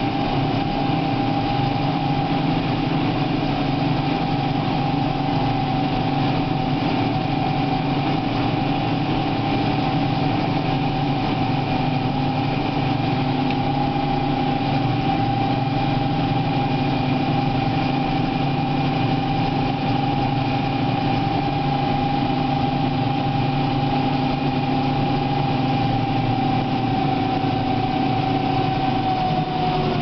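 John Deere tractor engine running steadily while working a mounted plough, heard from inside the cab. A steady whine sits over the engine drone and drops slightly in pitch near the end.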